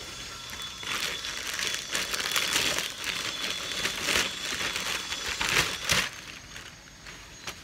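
Plastic packaging crinkling and rustling in repeated bursts as it is handled, dying down after about six seconds.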